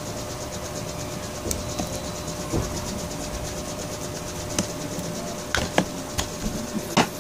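Screwdriver driving a self-tapping screw into an electric fan motor's housing: scattered small metallic clicks and taps, more of them in the second half, over a steady hiss with a faint hum.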